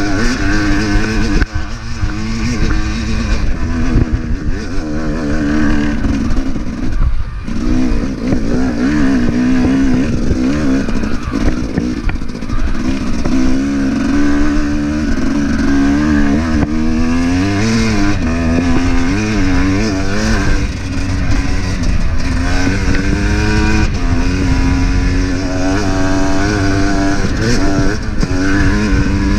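Dirt bike engine being ridden under changing throttle, its pitch rising and falling continually. It drops away briefly about seven seconds in, then picks up again.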